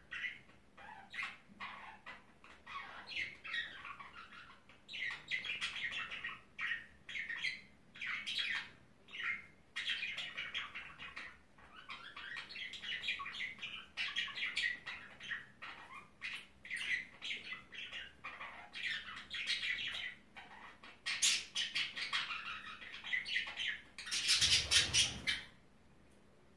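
Pet budgerigars chattering in a steady stream of short warbling chirps, with a louder noisy burst lasting about a second near the end.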